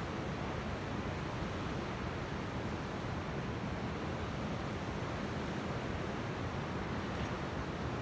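Steady, even rush of ocean surf mixed with wind, with no single wave standing out.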